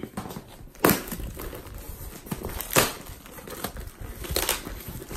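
A cardboard box sealed with packing tape being torn open by hand: several sharp rips of cardboard and tape, the loudest about a second in and just before three seconds, with rustling and crinkling between.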